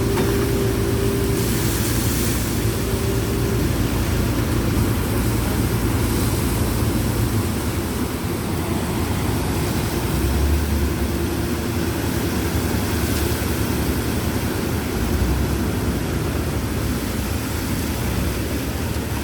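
Heavy construction-machine engine running steadily, with an even hiss on top.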